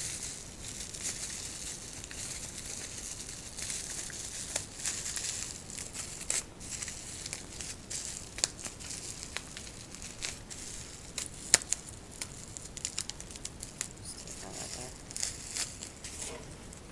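Pink plastic bubble wrap crinkling and rustling as it is pulled off a small model train locomotive by hand, with tape being peeled away. Many small crackles and clicks run throughout, with one sharper snap a little past the middle.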